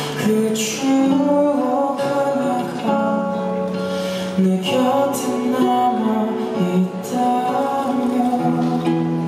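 A man singing a song live into a handheld microphone in long held notes, over acoustic guitar accompaniment.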